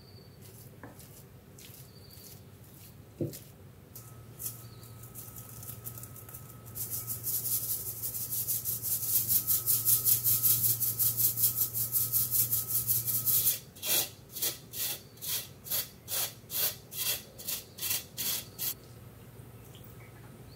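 Mascarpone cheese and powdered sugar being mixed in a glass bowl. First comes a fast run of scraping strokes over a steady low hum, then about two slower scraping strokes a second from a wooden spoon, stopping near the end.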